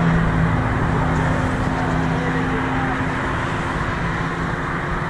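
Road traffic at an intersection: cars passing close by, with a steady engine hum that fades after about three seconds.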